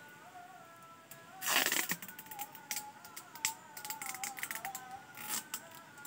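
Background instrumental music with a wavering melody. Over it comes the crackle and rip of clear plastic grafting tape being pulled off its roll and wrapped around a grafted chestnut stem. It is loudest as a tearing burst about a second and a half in, with a shorter one near the end.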